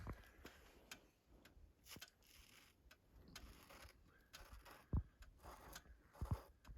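Faint scattered clicks and light knocks a second or more apart, the sharpest about five seconds in, against near silence.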